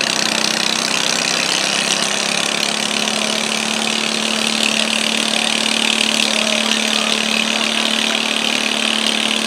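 International Harvester Cub Cadet garden tractor engine running hard and steady under load as it pulls a weight-transfer sled, its pitch holding constant throughout.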